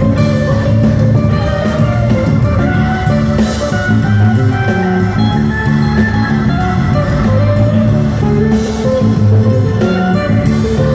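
Live band playing a rock number: electric guitar, Hammond organ, bass guitar and drum kit.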